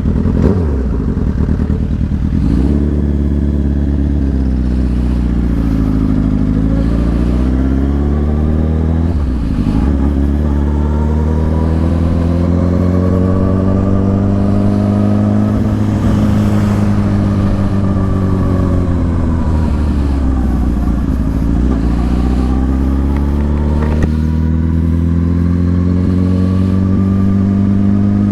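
Motorcycle engine running while riding, its pitch falling and rising several times as the throttle is eased off and opened again, over a steady low drone.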